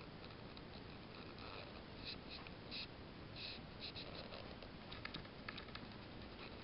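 O gauge three-rail model train rolling past: the metal wheels of sheet-metal coaches on MTH trucks give a faint, steady rumble on the track, with irregular clicks and ticks as they run over rail joints and points.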